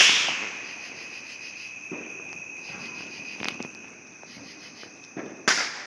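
Insects chirping steadily in a high, even trill. At the start the noise of a firework burst dies away, and a few short firework pops follow, the loudest near the end.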